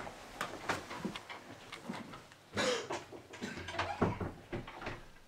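Puppies stirring in a plastic dog basket: a scatter of small clicks and scrapes, with a short breathy noise about two and a half seconds in.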